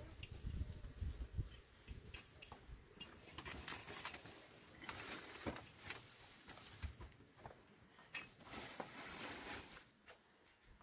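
Cloth rustling as laundry and a blanket are handled and shaken, with two spells of rustle in the middle and near the end, scattered light clicks and knocks, and a low rumble in the first second or so.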